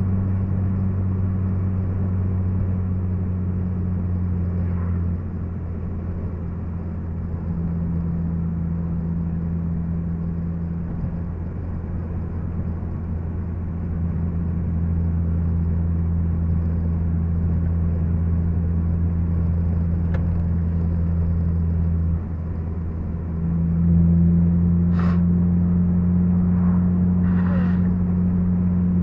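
Honda Civic Si's K20Z3 four-cylinder engine and road noise heard from inside the cabin while cruising steadily, a low even drone. The drone eases off about five seconds in and again about seven seconds from the end, then picks up, with a few short clicks near the end.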